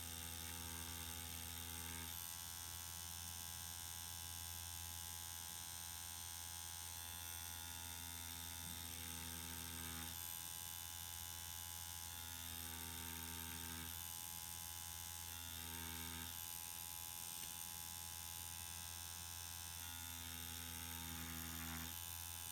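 Permanent makeup machine's small electric motor buzzing steadily while drawing hair strokes, with an extra tone coming and going about five times.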